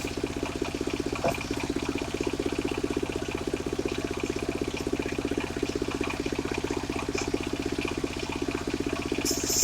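The engine driving a mobile circular saw runs steadily with a fast, even pulsing while the blade spins without cutting. Near the end the blade starts biting into sengon wood, adding a loud high rasp.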